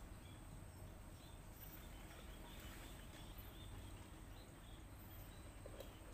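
Near-silent outdoor ambience, a faint steady hiss with a few scattered, faint short chirps.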